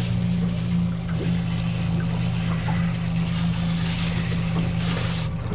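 Motorboat engine running steadily at a constant low pitch, over wind and water noise; the engine hum stops near the end.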